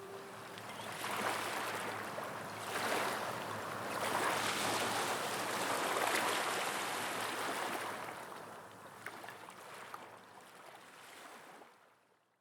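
Sea water washing in slow swells, fading out near the end.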